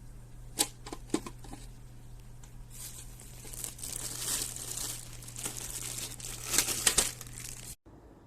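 Packaging crinkling and rustling as it is handled, with two sharp clicks in the first second and louder crackles near the end, over a low steady hum. It cuts off suddenly just before the end.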